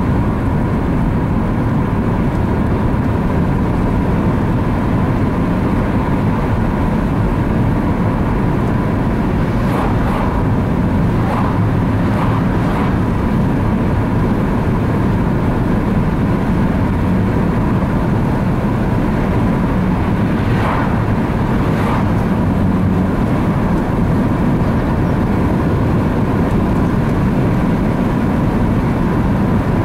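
Opel Astra Coupe driving at a steady speed, heard from inside the cabin as a constant rumble of road and engine noise. A few short knocks or rattles come about ten seconds in and again about twenty seconds in.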